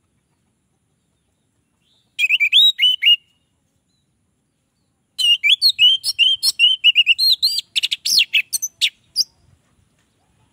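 Orange-headed thrush singing: a short burst of quick, high notes about two seconds in, then a longer run of rapid, varied notes from about five to nine seconds.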